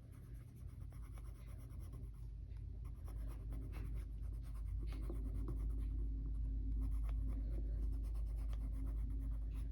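Kalour colored pencil scratching across coloring-book paper in quick, repeated shading strokes, over a low steady hum.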